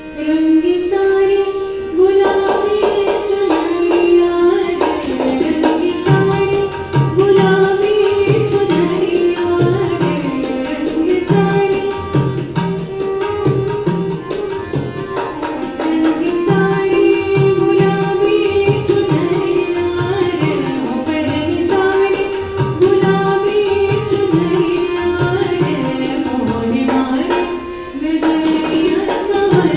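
Hindustani classical woman's voice singing a dadra in Raag Pahadi, accompanied by harmonium, tanpura and tabla. The melody swells in about two seconds in, and the tabla joins about six seconds in, keeping a steady rhythm with deep bass-drum strokes.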